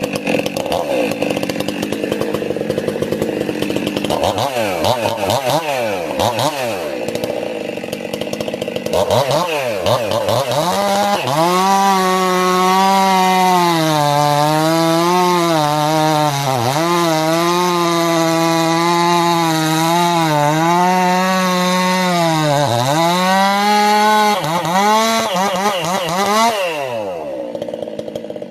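Stihl MS 362 C two-stroke chainsaw running, with a few quick blips of the throttle. It then holds a long steady high pitch with small dips, typical of the chain working through a cut. Near the end the revs fall away.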